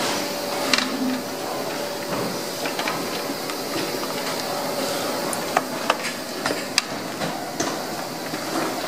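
Steady factory-floor background noise, with scattered sharp clicks and knocks from set-top box units and their packaging being handled and stacked on a workbench, a cluster of them in the second half.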